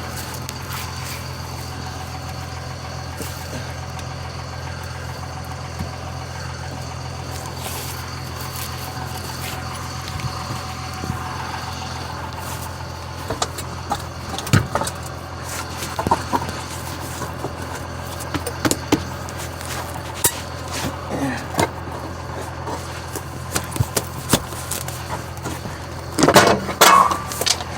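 A steady low hum of a running vehicle engine, with scattered sharp knocks and clanks from about halfway in as the loosened wheel and tire are handled, and a louder squeaky scrape near the end.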